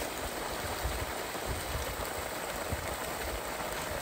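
Water rushing steadily out of the open end of an irrigation line as the line is flushed out under pump pressure.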